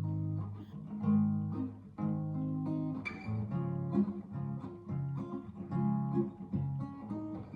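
Acoustic guitar playing a slow two-chord accompaniment of G-sharp major and C-sharp major, the chords changing about once a second.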